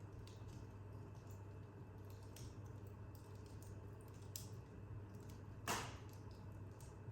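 Wood fire crackling in an open corner fireplace: small scattered crackles, with one louder sharp pop about two thirds of the way through.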